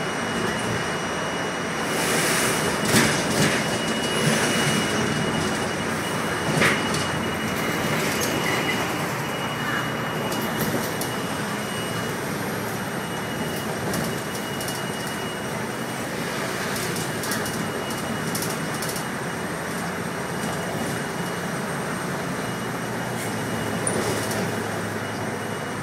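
Cabin noise from inside a moving bus: steady engine and road rumble with loose rattles and knocks, and a thin high whine that fades about halfway through.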